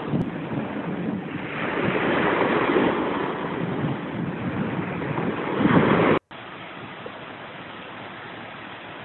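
Wind buffeting the microphone over surf, swelling and easing. It cuts off abruptly about six seconds in, leaving a quieter steady hiss.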